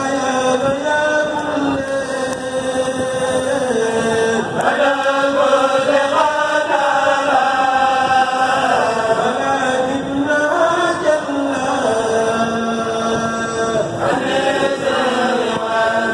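A kourel, a Mouride group of men, chanting a religious qasida together into microphones, with long held notes that glide from one pitch to the next.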